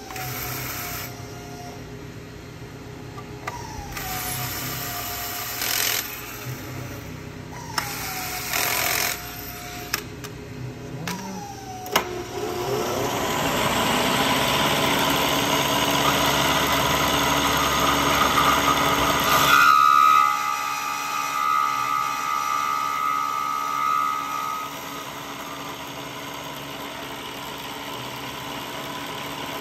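A cordless drill run in four short bursts, its motor pitch dropping each time as it loads up, then a vertical milling machine running. The mill is loud and noisy for several seconds, then settles after a sharp change into a steadier hum with a whine for a few seconds.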